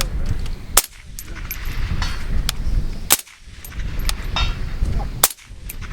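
Suppressed 7.62x39 rifle fired with a Dead Air Nomad suppressor: three sharp shots about two seconds apart, with fainter cracks in between and a low wind rumble underneath.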